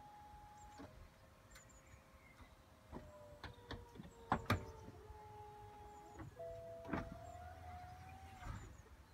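BMW M4 convertible's three-piece folding hard top closing: the roof motors whine steadily and change pitch as each stage of the movement starts. Several clunks come about three to four and a half seconds in as the panels seat and latch. Near the end a rising whirr is heard as the side windows power up.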